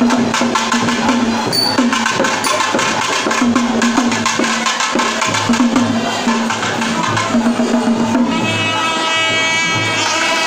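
Kerala brass band (band set) playing: the side drums and bass drum beat a fast, dense rhythm, and about eight seconds in the trumpets and clarinets come in with held notes over the drumming.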